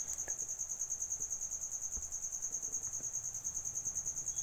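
Insect trilling steadily: a high-pitched tone pulsing in fast, even beats, with a few faint clicks.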